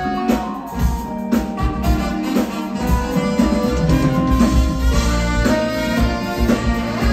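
Live band with a drum kit playing an upbeat instrumental number, with held instrument notes over a steady drum beat.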